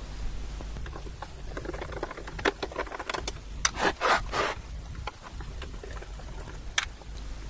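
Scattered clicks, knocks and scrapes from handling a PDP-8M minicomputer's metal chassis, tipped over while a screwdriver works at its front-panel screws, most of them in the middle of the stretch with one more near the end.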